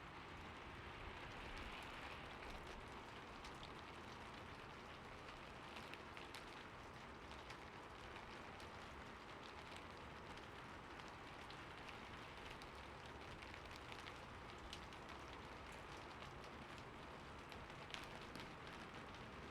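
Soft rain falling steadily, a quiet even hiss with scattered individual drop ticks and one sharper drip about 18 seconds in.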